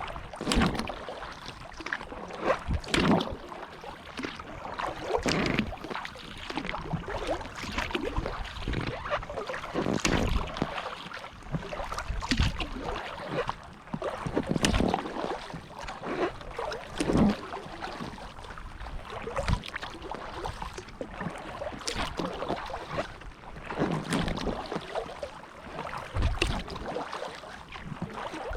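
Kayak paddle strokes in the water, a dip and splash about every two and a half seconds, over a steady wash of water around the hull.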